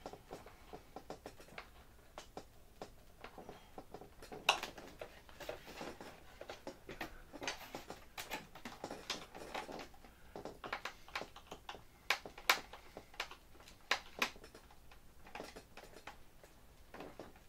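Irregular small clicks and creaks of a hand screwdriver tightening the screws that clamp a foam RC airplane's horizontal stabilizer to the fuselage, along with hands handling the plastic and foam tail. The clicks grow busier about four seconds in, with a few sharper snaps among them.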